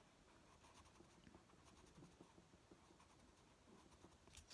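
Faint, irregular scratching of a black Prismacolor coloured pencil shading heavily on colouring-book paper.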